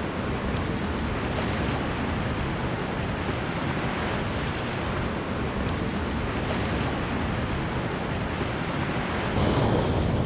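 Steady rushing noise of wind buffeting the microphone over moving river water, growing a little louder near the end.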